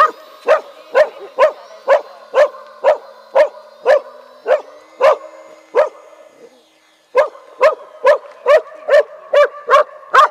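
A dog barking repeatedly at an even pace, about two barks a second, with a short break about six seconds in.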